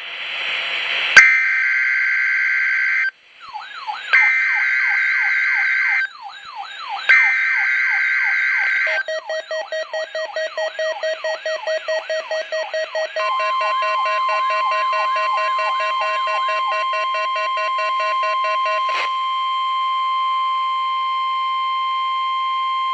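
NOAA Weather Radio alert tones for a Required Weekly Test. First come three shrill two-tone SAME header data bursts, about two seconds each, a second apart. A receiver's alarm overlaps them, a warbling siren of repeated falling sweeps turning into fast pulsing beeps. About 13 seconds in, the steady 1050 Hz warning alarm tone starts and holds for about ten seconds.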